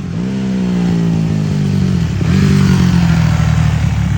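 Honda CRF150R four-stroke single-cylinder dirt bike engine revving as it is ridden. The note drops sharply at the start and again about two seconds in, climbing back each time, and gets louder in the second half. It is running on a carburetor freshly re-tuned for a rebuilt engine.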